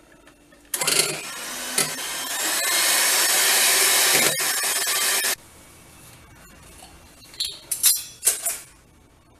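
Electric mixer beating the cream and sugar for about four and a half seconds, then switched off suddenly; a few light clinks follow near the end.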